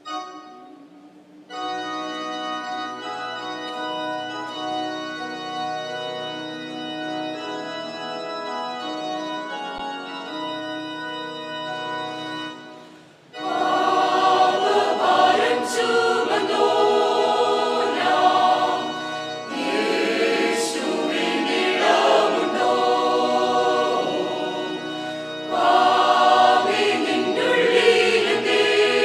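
Electronic keyboard playing an introduction of long held chords, then, about halfway through, a mixed church choir comes in singing a hymn over the keyboard accompaniment.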